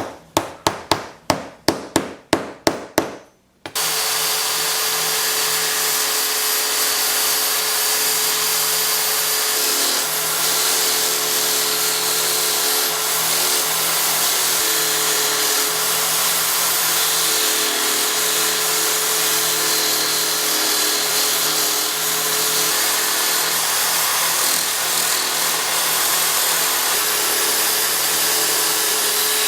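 A quick run of about a dozen sharp clicks, then a power tool starts and runs steadily with a constant hum and a hiss, most likely a wood lathe turning a purpleheart handle blank.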